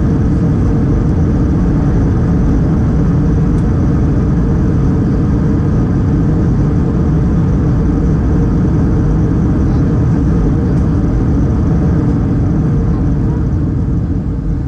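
Loud, steady low roar inside the cabin of an Airbus A320-211 with CFM56 engines during the landing, easing off near the end as the aircraft slows.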